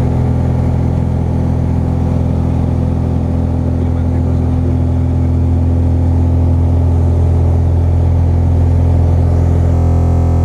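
Jabiru light aircraft's piston engine and propeller running steadily, heard from inside the cockpit while the plane taxis on the ground.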